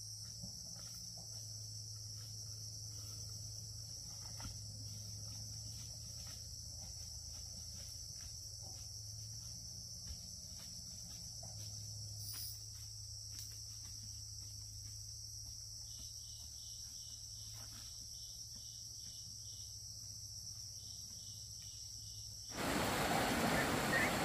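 Insects chirring in a steady high-pitched chorus over a faint low hum, with a second, rapidly pulsing call joining about two-thirds of the way in. Near the end a much louder, noisier sound cuts in abruptly.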